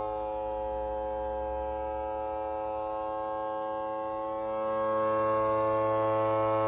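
Homemade MK1 model ACA Hurricane siren, a small battery-driven siren run with a blower, sounding a steady buzzing tone with many overtones. It is quieter at first and swells louder again about four and a half seconds in.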